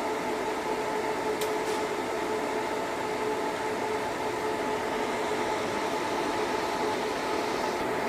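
A steady machine hum and whir with a constant mid-pitched tone, and two faint ticks about a second and a half in.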